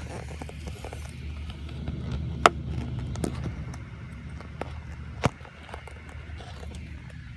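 Heavy rain heard from behind window glass: a steady low rumble with a faint hiss over it. Two sharp clicks stand out, about two and a half and five seconds in.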